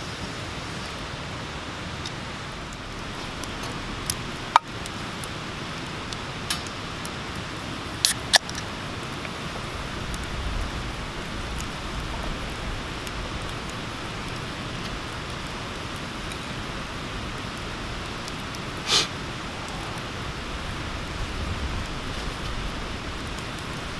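Wood fire burning hard in a small folding Bushbox-type stove, overloaded with wood: a steady rushing of flames with a few sharp crackles and pops in the first half and a brief louder burst later on.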